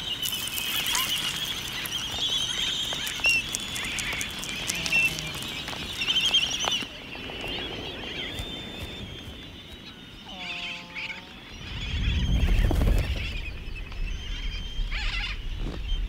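Laysan albatross colony: a dense chorus of high squeaky calls and sharp clicks while adults feed their chicks. It then turns quieter, with a single call falling in pitch about ten seconds in and a low rumble swelling a little later.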